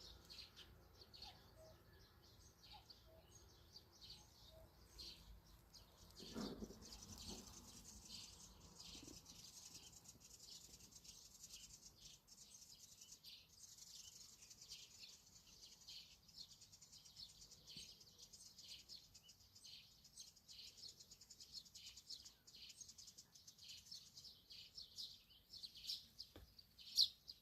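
Songbirds chirping: many short, high calls, faint, coming thicker and louder near the end. A brief lower sound about six seconds in.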